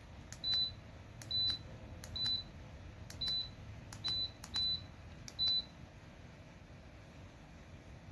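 Sunnote ceramic space heater's control panel beeping seven times, short high beeps each just after a click, as its buttons are pressed. A faint low hum runs underneath.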